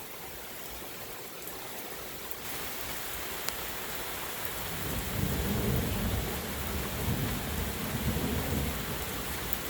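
Heavy rain hissing steadily, with a long, low roll of thunder building from about halfway through and rumbling on.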